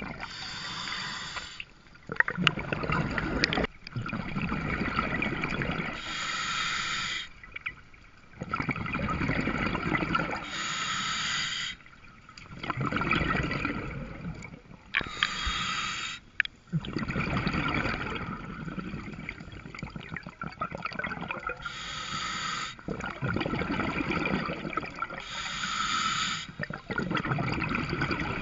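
Scuba diver breathing through a regulator underwater. Short hissing inhales alternate with longer bubbling exhales, about six breaths, one every four to five seconds.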